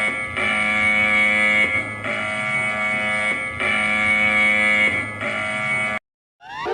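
Emergency alert alarm tone: an electronic chord with many overtones that switches back and forth between two pitches roughly every second and a half, cutting off suddenly near the end.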